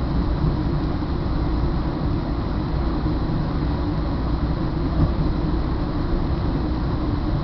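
Steady rumble of a commuter train in motion, heard from inside the passenger car: wheels on rail and the running of the car, with a faint steady hum.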